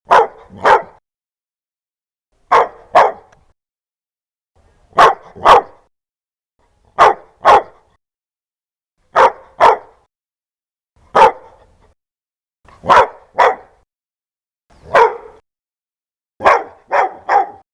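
A dog barking loudly in short double barks, a pair about every two seconds, ending with three quick barks.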